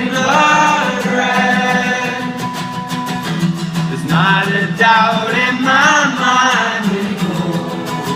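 Live acoustic music: singing over a strummed acoustic guitar, with sung phrases in two stretches separated by a short instrumental gap.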